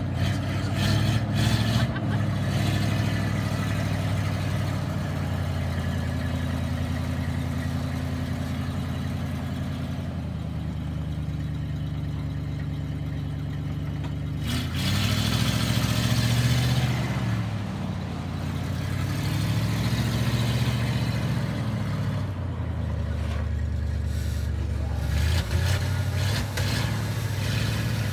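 A 1972 Ford F600 dump truck's engine running while the truck manoeuvres back and forth on gravel. Twice, in the second half, the engine is revved up and eased off, its pitch rising and then falling.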